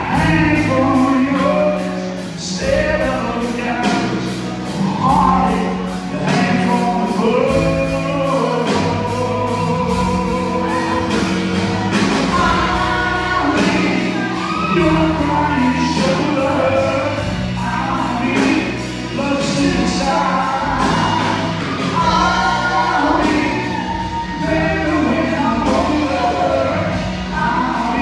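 Live band playing a song with singers: a sung melody over a steady bass line and drums.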